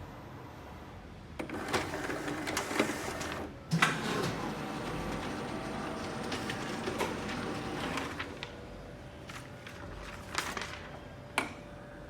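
Xerox WorkCentre office copier running a print cycle with a steady mechanical clatter and many clicks. The run starts about a second and a half in, dips briefly with a sharp click, and goes on until about eight seconds in. A few separate clicks come near the end.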